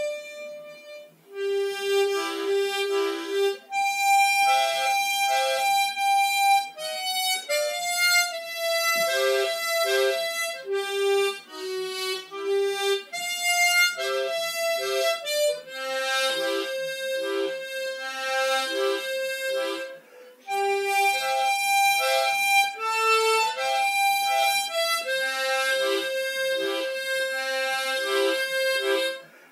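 Harmonica playing a slow melody, with short repeated lower notes beneath it and brief breaks between phrases about a second in and near the twenty-second mark.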